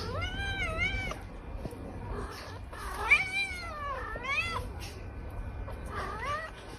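A cat meowing four times: drawn-out meows whose pitch wavers up and down.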